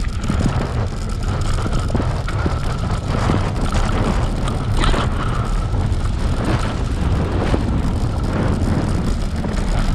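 Bicycle moving at speed along a dirt trail: a steady low rumble of wind on the microphone, with scattered crackles from the tyres rolling over the ground.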